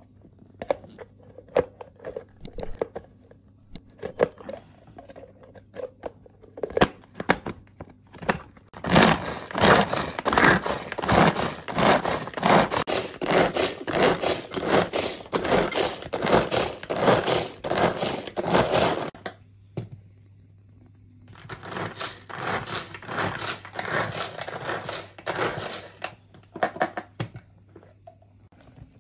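Manual pull-cord food chopper chopping onion: rapid repeated cord pulls with the blades rattling and scraping through the pieces, in a long run of about ten seconds and, after a short pause, a shorter one of about five. Before that, scattered clicks and knocks as the pieces go in and the plastic lid is fitted.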